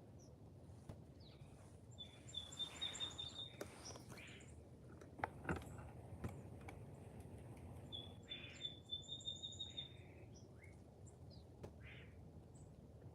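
Wild birds calling, faint: two runs of rapid, high, evenly repeated notes, with short harsh calls between them. Two sharp knocks come a little past the middle.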